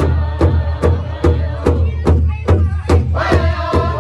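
Powwow drum group singing a Women's Traditional song over a large shared hand drum beaten in a steady, even beat, about two and a half strokes a second. About three seconds in, a stronger, higher sung line with long held notes comes in over the drum.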